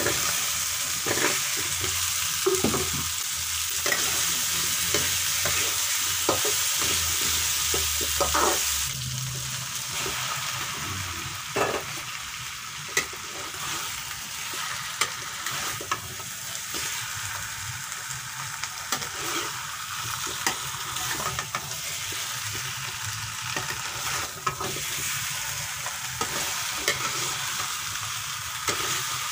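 Chili spice paste sizzling in hot oil in a pan, with a metal spatula scraping and knocking against the pan as eggplant slices and fish head pieces are stirred in. The sizzling hiss is steady, and the spatula strikes come irregularly.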